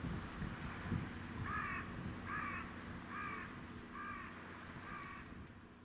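A crow cawing five times in an even series, the calls a little under a second apart, over a low rumble of wind on the microphone.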